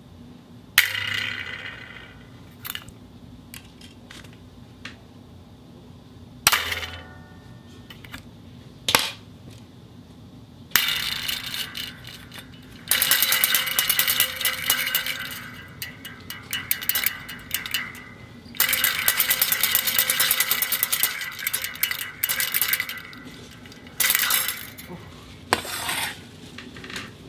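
Metal clanks and rattles from a dog bowl and a spring being handled for sound effects: a few separate sharp, ringing hits, then long stretches of rapid metallic rattling.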